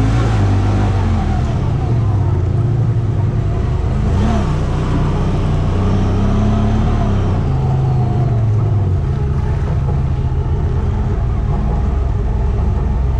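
Side-by-side UTV engine running under load on a trail ride, its pitch rising and falling with the throttle.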